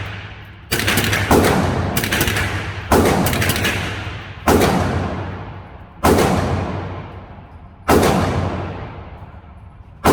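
.22 LR rifle shots from an AR-style rifle fitted with a CMMG .22 LR conversion kit, fired as slow single shots. There are six shots, mostly about one and a half seconds apart, and a seventh right at the end. Each crack is followed by a long echo that fades out.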